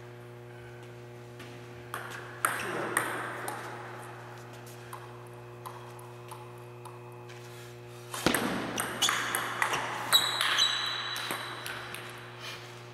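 Table tennis ball clicking off the paddles and table: a couple of hits about two seconds in, then a quick rally of sharp ticks from about eight seconds in. A steady low hum runs underneath.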